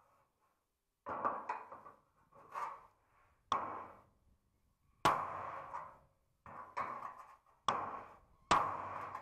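Hammer blows on the rusted steel bonnet panel being repaired, about seven separate strikes at uneven intervals, each dying away over about half a second.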